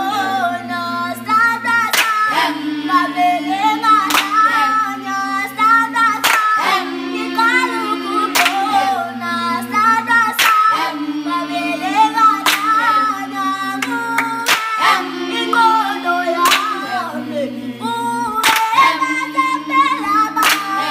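A group of children and adults singing a song a cappella in harmony, with a low held chord under the melody, and hand claps about every two seconds.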